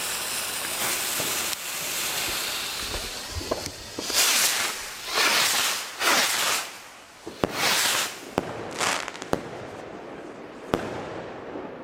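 Several firework rockets of the Magnum Apollo Rockets assortment lit together: their fuses hiss, then the rockets take off one after another with loud rushing whooshes from about four to nine seconds in. Sharp cracks of the bursts follow in the last few seconds.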